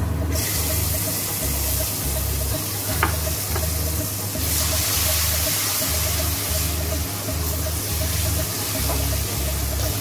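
Liquid poured into a steel pot of hot oil and browned masala hits the oil with a sudden loud sizzle about a third of a second in, and the sizzling and bubbling carry on, growing louder midway, as the mixture is stirred with a spatula. A steady bass beat of background music runs underneath.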